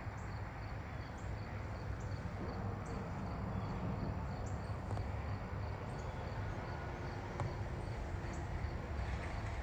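Crickets chirping in a steady rhythm, about three chirps a second, over a low steady rumble.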